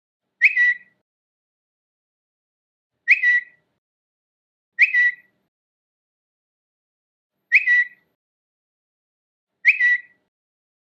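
Twitter notification sound, a short bird-like chirp, played five times at uneven intervals with silence between. Each one is a quick double chirp.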